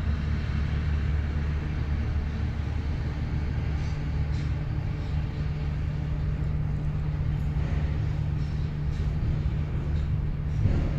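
Pacific National BL-class diesel-electric locomotives running steadily with a container train, a continuous low engine drone with no change in pitch.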